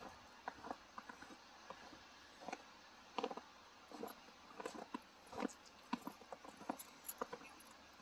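Faint footsteps crunching in fresh snow, an irregular soft crunch every half second to a second.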